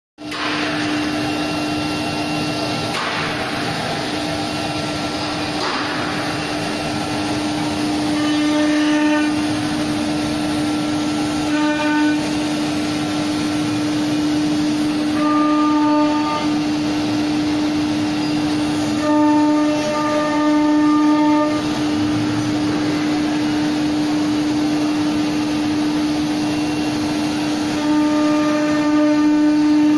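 Wood-working CNC router with drill block and saw unit running: a steady hum held at one pitch, with higher-pitched whines rising in for a second or two several times as the head moves and works the panel.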